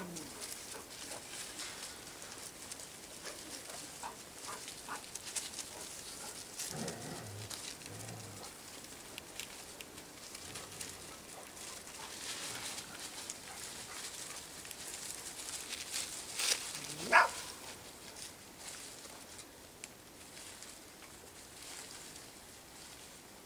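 Golden retriever puppies moving about in dry leaves and twigs, with scattered light rustling. About seventeen seconds in, one puppy gives a single sharp yelp that rises steeply in pitch.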